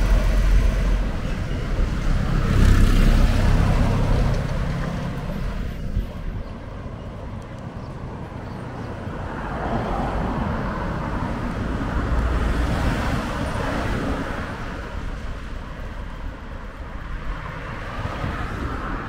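Road traffic: motor vehicles passing, with a heavy low engine rumble at the start that fades within a few seconds, then swells of engine and tyre noise about ten and thirteen seconds in.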